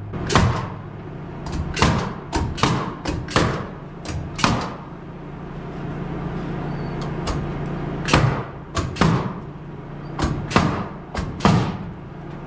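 Hammer striking nails into a wooden board in two runs of quick blows with a pause between, over a steady low hum.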